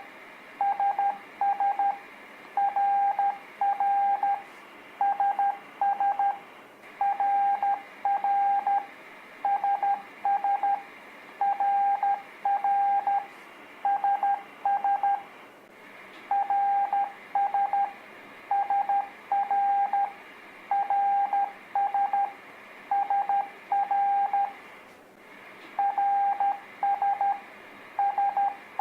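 Morse code (CW) practice tone sending the letters R (dit-dah-dit) and S (dit-dit-dit) as groups of short and long beeps at one steady pitch, with a short pause after each letter. A steady hiss sits under the beeps.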